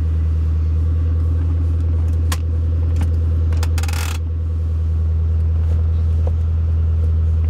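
A 2008 Ford Mustang GT's 4.6-litre V8 idling steadily, heard from inside the cabin. A few sharp clicks and a short clunk come from the five-speed manual shift lever as it is moved through the gears, about two to four seconds in.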